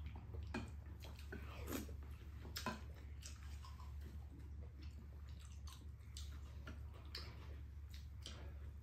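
Close-up eating sounds: chewing and mouth noises, with scattered light clicks of spoons and chopsticks against ceramic bowls, over a steady low hum.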